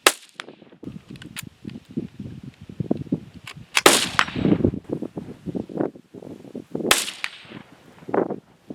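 Rimfire rifle shots: three sharp cracks roughly three seconds apart, each with a short echo.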